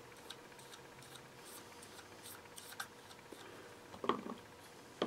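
Faint small ticks and light scraping of a small brush coating a balsa part with thinned resin, with a brief louder thump about four seconds in.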